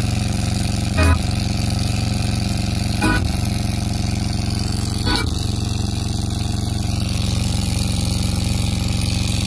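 Amplified speaker box giving out a loud, steady electrical buzzing hum from the 12 V amplifier board with no music playing, broken by short clicks about one, three and five seconds in.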